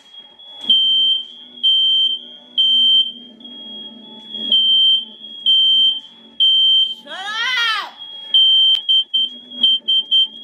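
Fire alarm sounding: a shrill high beep repeating about once a second, with the beeps growing shorter and quicker near the end. About seven seconds in, a short cry rises and falls in pitch over the beeping.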